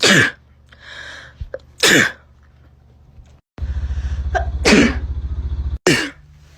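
Four sharp human sneezes in quick succession, the first right at the start and the others about two, five and six seconds in, with a loud breath between the first two. A low steady hum runs under the third sneeze.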